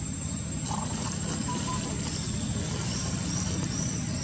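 Steady low rumble of outdoor background noise, with a few faint short high chirps in the second half.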